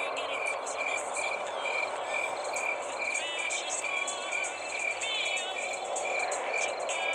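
Night ambience of crickets and frogs calling. A regular chirp pulses two to three times a second over a steady hiss, with shorter high trills and a few warbling calls scattered through it.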